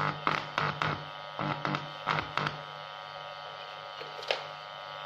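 Two small loudspeakers driven by a TEA2025B mini amplifier give a steady hum with a buzz. A run of crackling pops over the first two and a half seconds comes as a 3.5 mm audio plug is handled at the amplifier's input, with one more pop about four seconds in.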